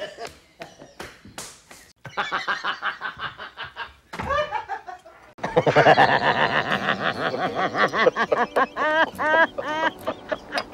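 A man laughing: a short run of laughter about two seconds in, then a longer, louder one through the second half, each a fast series of even 'ha' pulses.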